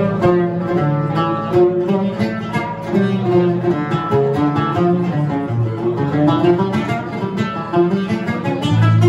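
Live instrumental music with no singing: a quick plucked-string melody over acoustic guitar accompaniment. A steady low held chord comes in near the end.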